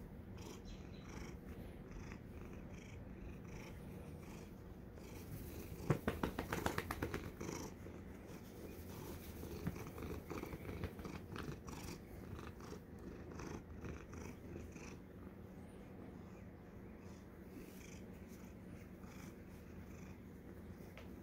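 Domestic tortoiseshell cat purring steadily while being stroked. About six seconds in comes a short burst of rapid scratchy crackles, the loudest part, with smaller ones for a few seconds after.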